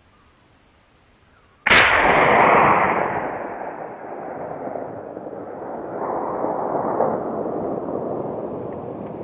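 A single rifle shot about a second and a half in, followed by a long rolling echo that fades over several seconds. No bullet strike is heard, which the hunters take for a clean miss.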